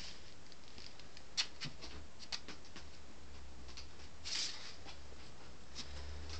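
A kitten pawing and nosing at a sheet of paper on carpet: a few light ticks and taps in the first half, then a short papery rustle about four seconds in.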